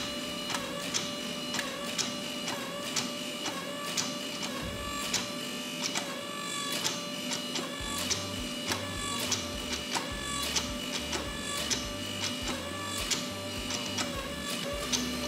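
Background music with a steady beat of regular clicks over held tones; a stepping bass line comes in about halfway through.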